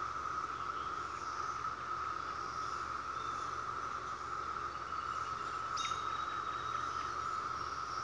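A chorus of many cicadas singing together as one steady, unbroken high drone. A brief higher-pitched sound cuts in about six seconds in.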